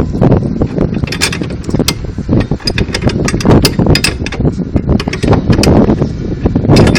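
Irregular mechanical clicks and knocks over a steady low rumble.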